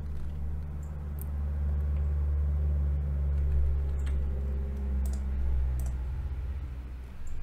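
Scattered computer keyboard and mouse clicks over a steady low hum.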